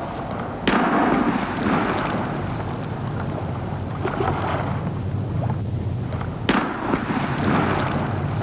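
Two sharp cracks, about a second in and again near the end, each followed by a long rushing hiss that fades, over a steady low rumble: signal flares fired into the night sky.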